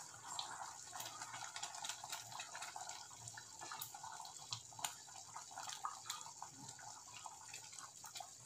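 Ginger-sugar syrup bubbling at a boil in a pan, with many small pops, while a wooden spatula stirs it; the mixture is cooking down and thickening.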